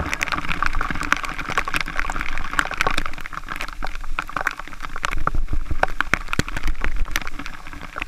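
Waterfall water splashing and spattering close by: a steady rush crowded with many sharp drips and splats.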